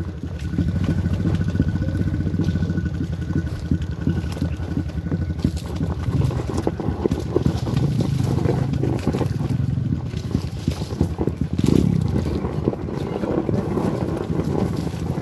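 Honda XRM underbone motorcycle's single-cylinder four-stroke engine running steadily while riding down a rocky dirt trail, with scattered knocks and rattles from the bike over the stones.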